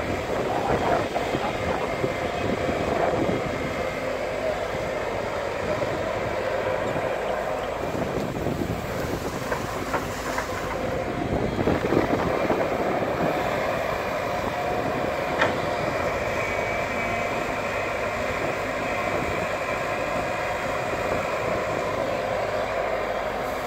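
Heavy excavator's diesel engine running steadily under working load, with a couple of brief metallic knocks partway through.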